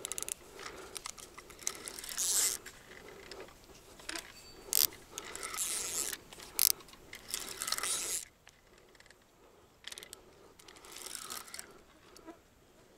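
Fishing reel being cranked in uneven spurts, its gears and mechanism clicking and rattling, with a quieter pause past the middle: reeling in a hooked fish, which the angler takes for a carp.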